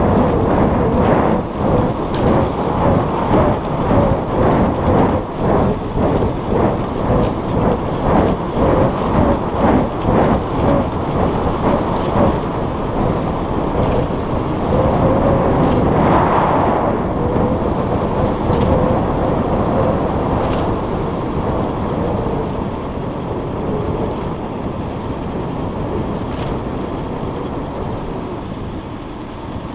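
Wind rumbling on the microphone while riding a bicycle, pulsing about twice a second through the first half, with a brief swell about halfway through, then easing off.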